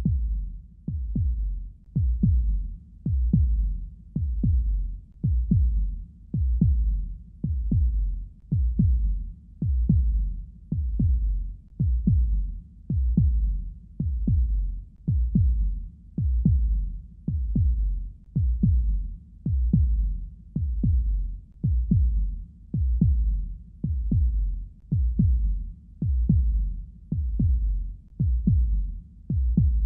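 Soundtrack of deep, heartbeat-like thuds repeating steadily about once a second over a low hum, with no melody or higher instruments.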